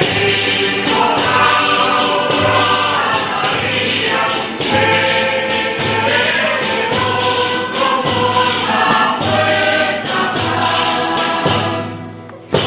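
A ronda of despertadores (traditional dawn singers) singing a religious song in chorus, over an even, rhythmic percussion accompaniment. The verse ends and the sound drops briefly near the end, then the playing starts again.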